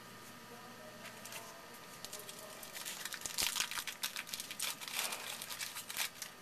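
A baseball card pack's wrapper being torn open and crinkled by hand, a run of quick crackles starting about two seconds in and stopping just before the end.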